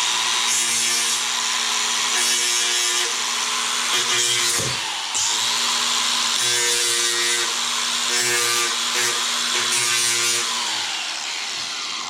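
Grinder running and grinding off the tips of brad nails that missed and poke through the plywood, its motor note shifting as it bears on the work. It eases off briefly about halfway, then spins down near the end.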